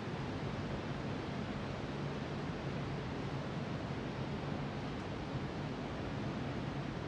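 Steady, even hiss-like background noise with a faint low hum.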